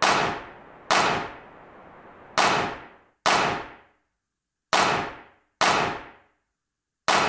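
A series of seven sharp bangs at uneven intervals, each dying away over about half a second.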